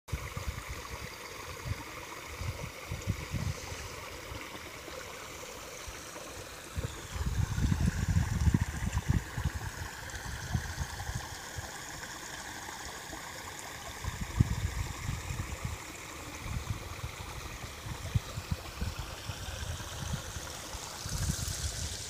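Small creek flowing and trickling steadily over snags and shallows. Bursts of low rumble on the microphone come and go, strongest about seven to ten seconds in.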